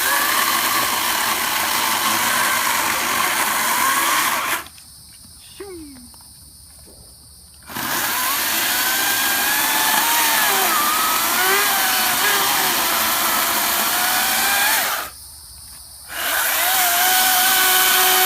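Ryobi 40-volt cordless electric chainsaw cutting into a thick log, run in three bursts: it stops about four and a half seconds in, starts again about three seconds later, pauses for about a second near the end, then runs again. The motor's pitch wavers as the chain bites into the wood.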